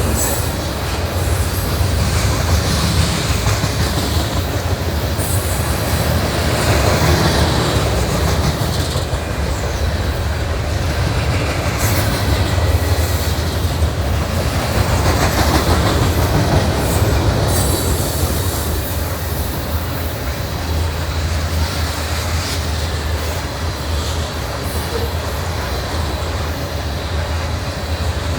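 Long Norfolk Southern freight train's cars rolling past at speed on the shoo-fly, a steady loud rumble with wheels clacking over the rail and short high wheel squeals.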